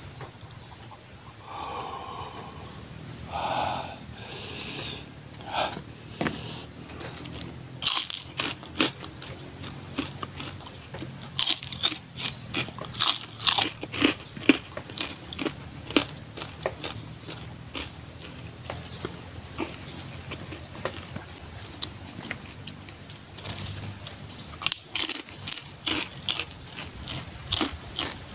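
Close-up chewing of raw red chili, greens and rice eaten by hand: crisp crunches in irregular runs, busiest about eight seconds in and again near the end.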